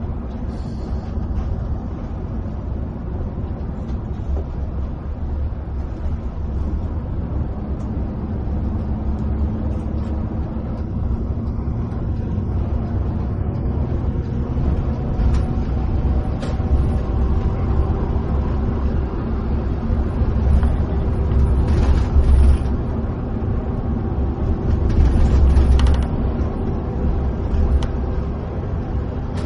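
Steady low road rumble of a coach's engine and tyres, heard inside the cabin while cruising on a highway. A faint whine rises slowly in pitch through the second half, and twice near the end there is a brief louder swell with a hiss.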